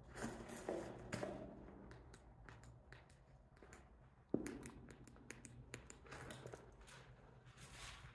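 Faint scuffing footsteps and small clicks on a gritty concrete floor as someone walks with a handheld camera, with one sharp knock about four seconds in.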